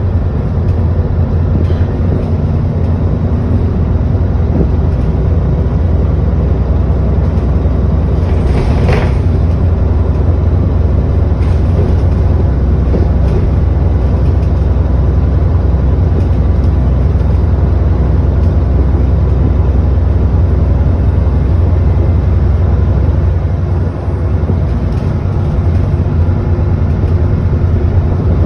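Alexander Dennis Enviro400 double-decker bus under way, heard from inside: steady, heavy low engine and road rumble, with a short burst of noise about nine seconds in.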